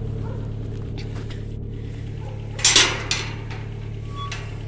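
Metal farm gate being opened by hand: one short clanking rattle about two and a half seconds in, over a steady low hum.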